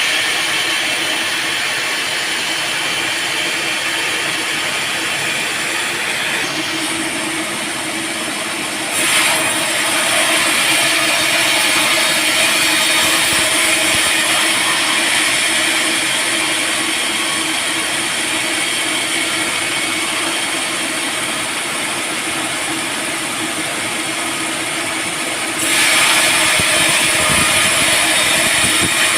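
Sawmill band saw running steadily through teak, a continuous mechanical hiss and whine. It gets louder and brighter about nine seconds in and again near the end.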